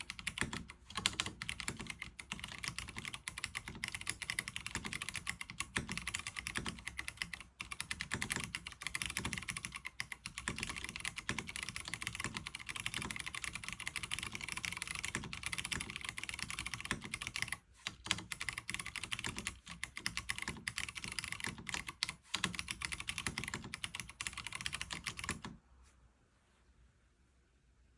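Fast, continuous typing on a NovelKeys Classic TKL mechanical keyboard with tactile Cherry MX Brown switches (lubed 60 g springs), PBT keycaps and no case foam. The typing stops about three seconds before the end.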